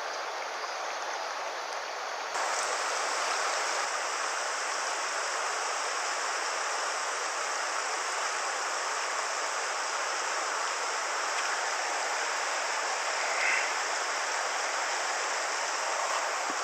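River water rushing steadily over a shallow rocky run, the kind of current that ayu are fished in. It grows louder about two seconds in.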